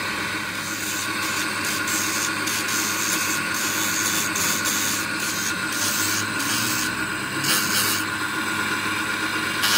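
Belt-driven grinding wheel grinding the steel teeth of a differential pinion gear held against it by hand, a gritty hiss that comes and goes in short strokes over the wheel's steady hum.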